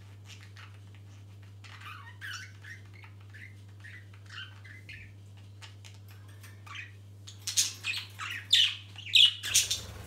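Budgerigars chirping and chattering in short calls, with a run of louder, sharper squawks in the last few seconds, over a steady low hum.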